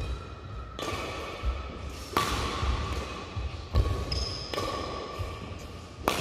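Badminton rally: racket strings striking the shuttlecock about every one and a half seconds, each sharp crack echoing around a large hall. Between the hits come dull footfall thuds as the player moves on the court.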